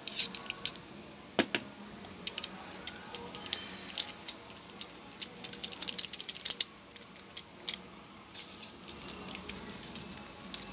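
A small screwdriver clicking, tapping and scraping against a laptop cooling fan's plastic hub and blades as the stiff fan is worked loose by hand, in irregular sharp clicks and light rattles.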